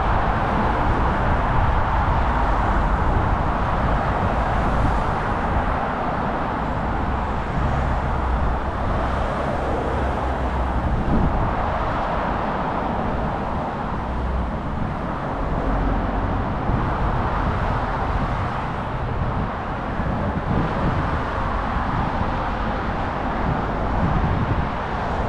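Steady road traffic: cars passing on a busy road, heard as a constant rushing hiss, with wind rumbling on the microphone.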